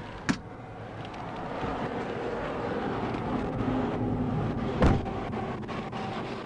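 Rumble of heavy traffic that swells over a few seconds as a semi-truck passes close by, with two sharp knocks, the louder one about five seconds in.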